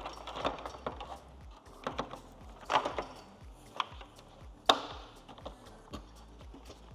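Plastic clicks and knocks as the new BMW CS grille is handled and pressed into the front bumper, its clips seating. The clicks come irregularly, the sharpest about two-thirds of the way through.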